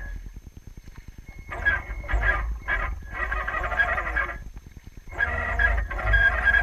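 RC tug boat's motor whining, cutting out at the start and coming back in short on-off bursts, then again steadily after a brief pause near five seconds, as the throttle is worked.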